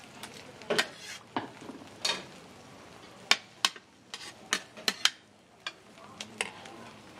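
Metal spatula scraping and tapping on a flat-top griddle as beaten egg and glass noodles are stirred and spread: about a dozen sharp, irregular clacks, over a low frying sizzle.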